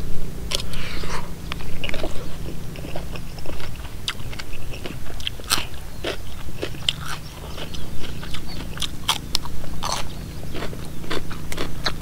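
A man chewing a mouthful of spicy Isan salad of chicken feet, mixed seafood and rice noodles close to the microphone: crisp crunching and biting clicks at irregular intervals.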